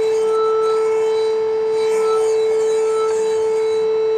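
Steady pure test tone of a little under 500 Hz, with faint overtones, from a small loudspeaker driven by a phone function-generator app. It is sounding into a resonance tube for a sound-resonance experiment.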